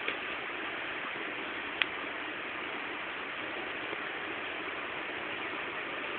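Steady hiss, with one short click about two seconds in.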